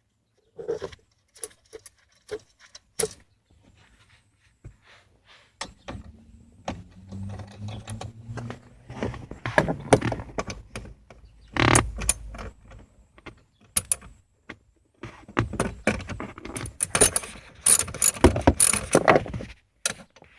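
Hand tools and car interior parts being worked around a steering column: a run of irregular clicks, clacks, rattles and knocks. The loudest knocks come about twelve seconds in and again near the end.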